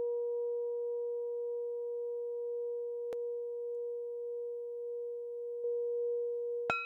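Singing bowl sounding one steady, sustained tone. Near the end a sharp click sets off a brief ring of its higher overtones, and the sound quickly dies away.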